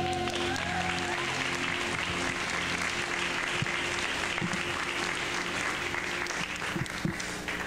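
Audience applauding over soft background music. The applause fades away near the end.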